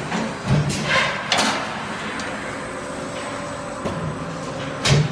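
Solar mounting bracket roll-forming line running: a steady machine hum with a few bursts of metallic rattling and knocking, about a second in and again near the end.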